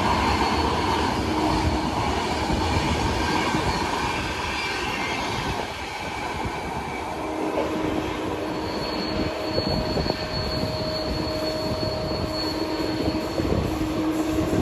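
Running noise of an Indian Railways passenger train heard from an open coach doorway: a steady rumble of wheels rolling on the rails, joined about halfway through by thin steady squealing tones from wheels on rail.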